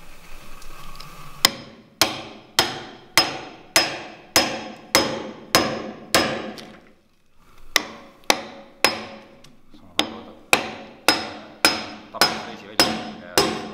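Steel hammer striking a wide framing chisel to chop a mortise in a timber beam: steady blows about two a second, each with a short ring, with a brief pause about halfway through.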